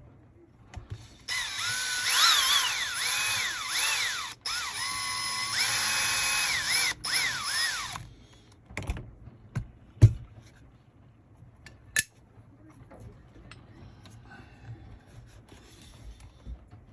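Small electric screwdriver backing out a camber link screw on an RC truck, its motor whine rising and falling in pitch as the speed changes, in two runs with a brief stop between. Then a few sharp clicks of small parts and tools being handled.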